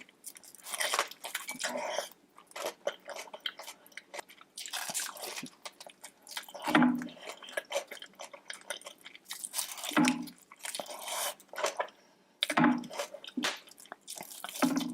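Close-miked eating of seafood: biting, crunching and chewing, with wet mouth clicks and smacks that come in bursts every second or two, and short low hums now and then.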